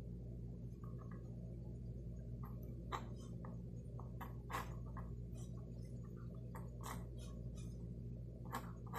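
Mechanical pencil drawing short sketch lines on paper: light irregular scratches, a few stronger strokes in the second half. A steady low hum runs underneath.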